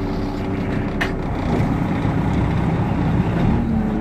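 Fishing boat's engine running steadily, with one sharp click about a second in.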